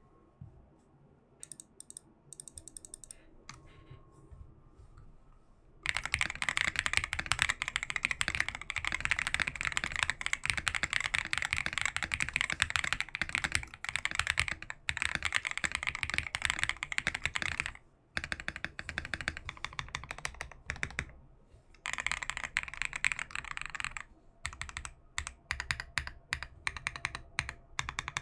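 Typing on a CIY GAS67 mechanical keyboard with lubed Akko Vintage White switches, Matcha keycaps and Keychron screw-in stabilisers. A few scattered keystrokes, then a dense run of fast typing from about six seconds in with two short pauses, ending in slower, separate key presses.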